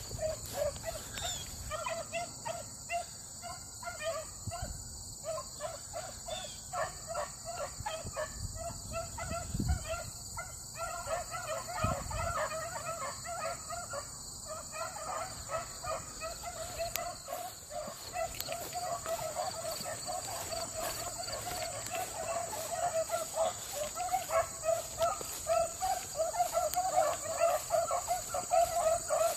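A pack of rabbit hounds baying on a rabbit's trail: a long run of short, repeated bawls that grows louder and busier near the end. A steady high drone of insects runs under it.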